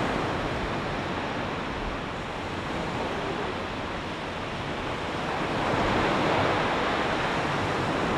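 Sea surf washing on a shore: a steady rush of waves that swells about six seconds in.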